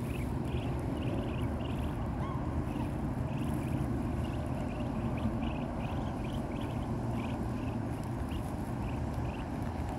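Muscovy ducklings peeping: short, high peeps, about two or three a second, over a steady low rumble.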